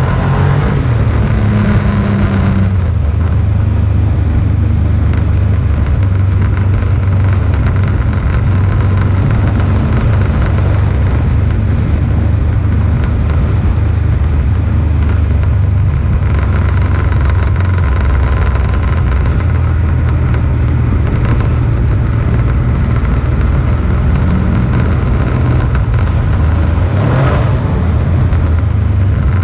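Motorcycle riding at a steady cruising speed: the engine running with a continuous low rumble of wind and road noise.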